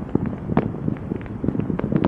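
Fireworks going off: a dense run of sharp pops and cracks, several a second, over a low rumble.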